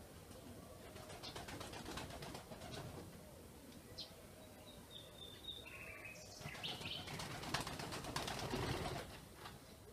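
Birds chirping faintly, with a few short high chirps about four to six seconds in, over a low background rumble.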